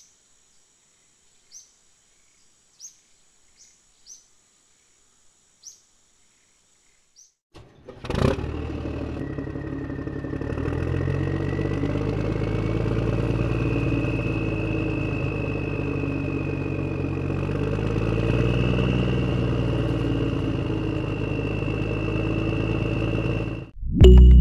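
A tractor engine sound effect dubbed over a toy tractor. After a few faint bird chirps, it starts with a click about eight seconds in, runs steadily with a high whine that rises slightly, and cuts off abruptly just before the end.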